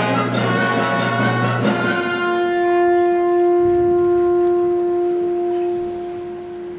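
Orchestral ballet music: the full orchestra plays for about two seconds, then a single long held note carries on alone and fades near the end.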